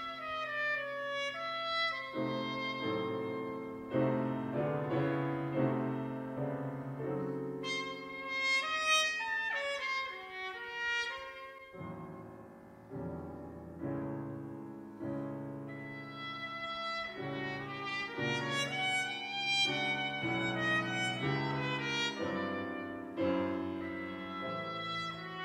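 Solo trumpet playing a classical concert piece with grand piano accompaniment, moving through runs of short notes and some held notes over piano chords.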